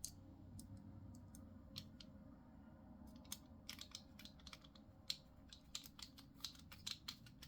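Faint, irregular small clicks and ticks of a precision screwdriver turning small screws into a folding knife's handle, coming thicker in the second half.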